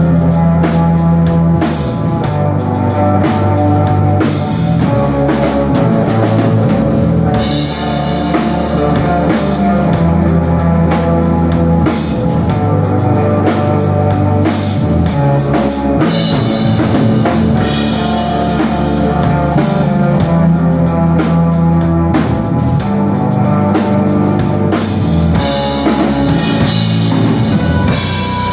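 A live instrumental desert rock band playing: a drum kit beating steadily under sustained low bass notes and electric guitar. Cymbals wash in and out at several points. There are no vocals.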